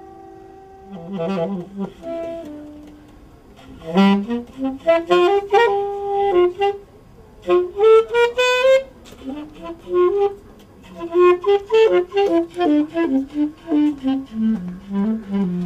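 Saxophone playing a solo line of quick runs of notes that climb and fall, in phrases with short breaks between them.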